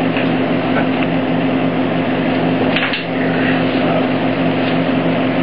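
Steady machinery hum with a constant noisy rush of room air. There is a faint knock about three seconds in.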